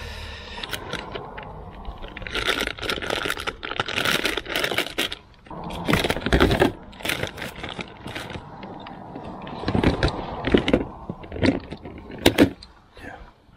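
Fishing lures and tackle being handled: irregular clicks, rattles and scrapes of hard-bait lures and their hooks against a plastic tackle box.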